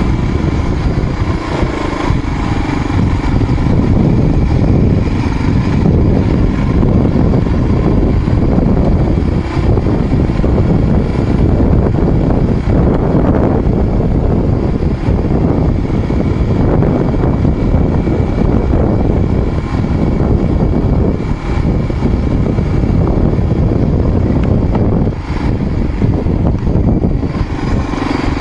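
Dirt bike engine running steadily under load on a climb up a loose gravel trail.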